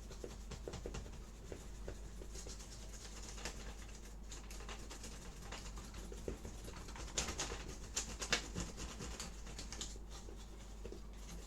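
A brush's bristles scrubbing dust off a laptop's internal parts: a run of quick, soft, scratchy strokes, a little louder and busier about seven to nine seconds in.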